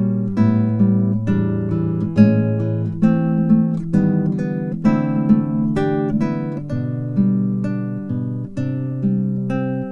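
Background music: acoustic guitar playing plucked and strummed notes, a fresh note or chord about every half second.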